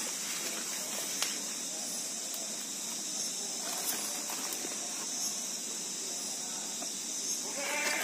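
Steady high-pitched chorus of insects, with a few light clicks and knocks as a small wooden stingless-bee hive box is handled.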